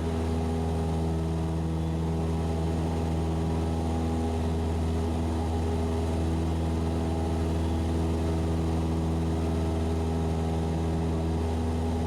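Cessna 172SP's four-cylinder Lycoming engine and propeller droning steadily in the climb after takeoff, heard in the cockpit.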